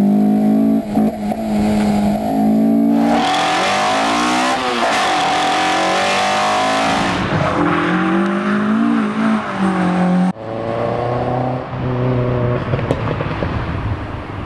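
Car engine revving hard, its pitch climbing and falling, heard in several clips cut abruptly together. A rushing noise rides over the engine in the middle.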